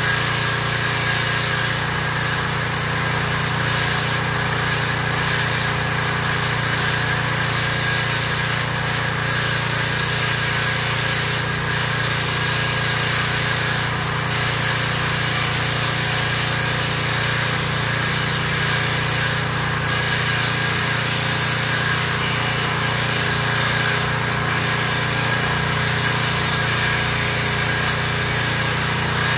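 Small gasoline engine on a pressure washer running steadily at one constant speed, with no rise, fall or stall.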